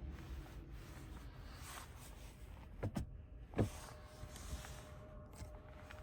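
Quiet road and cabin noise inside a moving 2025 Toyota Prius Limited. About halfway through come two sharp thumps less than a second apart, and just after them a faint steady whine.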